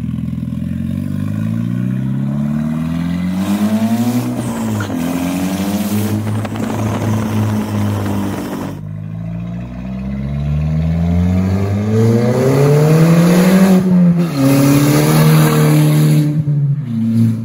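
Volkswagen GTI's turbocharged 2.0 TSI four-cylinder, straight-piped through a PVC pipe, accelerating loudly. The engine note climbs with the revs and drops back at each gear change, several times over.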